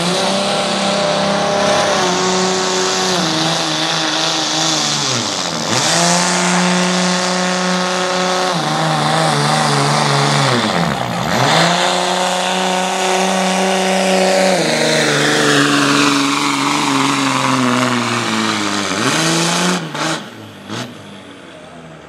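Dodge Ram diesel pickup running at high revs under full load while pulling a weight sled across a dirt track. Twice the revs dip sharply and recover. Near the end the engine drops off and falls away at the full pull.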